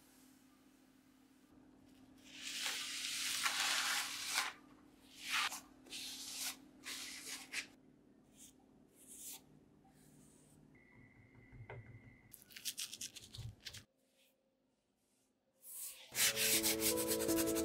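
Rubbing strokes of a brush over a decoupaged placemat board: a dense run of scratchy strokes about two to four seconds in, then a few shorter ones. Background music comes in near the end.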